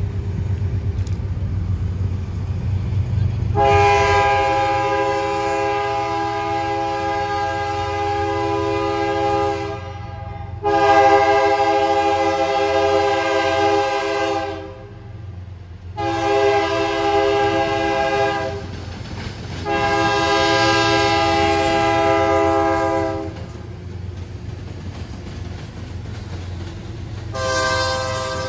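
Diesel freight locomotive's air horn blowing four loud blasts, the third shorter than the others, in the pattern of a grade-crossing warning. A fifth blast starts near the end. Under the horn there is a steady low rumble of the train rolling past.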